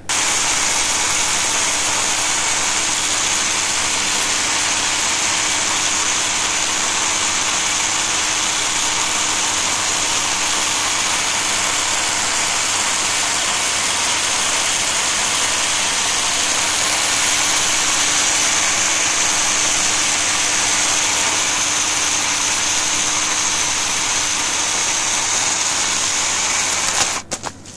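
Ryobi battery-powered 10-inch electric chainsaw running steadily as its chain cuts through a tree trunk, then cutting off suddenly near the end.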